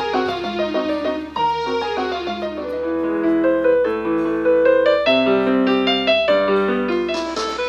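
Casio LK222 electronic keyboard playing one of its built-in songs in a piano voice: a melody over chords.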